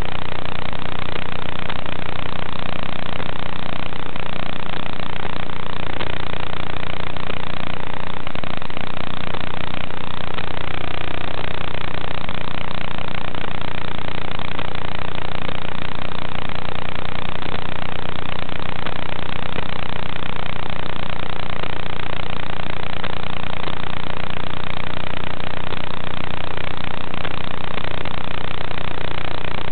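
Steady hiss with a constant low buzzing hum from an analog FPV video link's audio channel. It does not change with the quadcopter's flying or crash, so no motor sound comes through.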